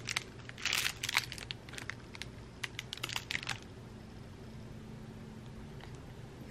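Crinkly tinsel wand cat toy rustling and crackling as it is poked at a cat, in quick clusters through the first three and a half seconds, then quieter.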